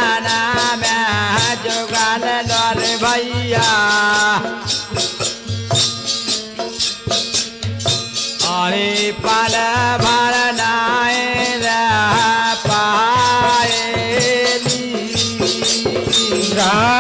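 Tamura bhajan folk music: men singing over a tamura drone, with steady dholak beats and jingling rattle percussion.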